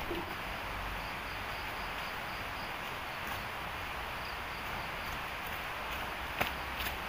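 Tropical forest ambience: a steady hiss with a faint high insect trill through the first half, and one light crunch near the end.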